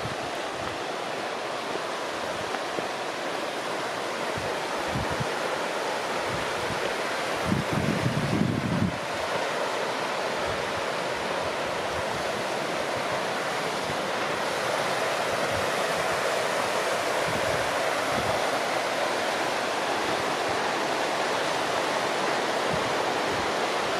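Little Firehole River rushing steadily alongside the trail. Wind buffets the microphone now and then, most strongly about eight seconds in.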